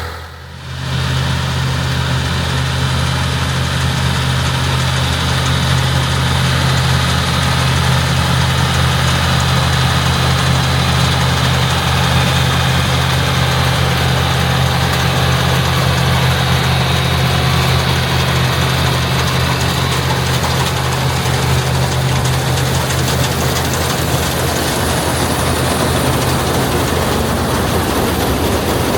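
International Harvester 684 tractor engine running steadily, powering a pull-type IH 82 combine, with a brief drop in the sound right at the start.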